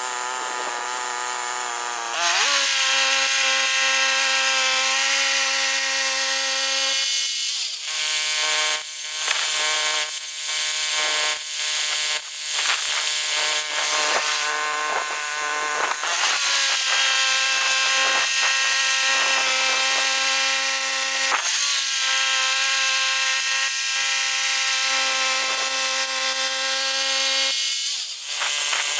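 Woodland Mills HM122 portable bandsaw mill sawing a large pine log: its gas engine runs steadily with the band blade in the cut, the engine note dropping as it takes the load about two seconds in. The sound changes from about eight to sixteen seconds in, then the engine runs steadily under load again until near the end.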